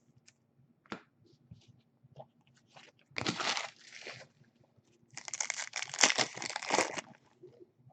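Foil wrapper of a trading-card pack being torn open and crinkled, in two noisy bursts: a short one about three seconds in and a longer one of about two seconds near the end, with a few small clicks of card handling between.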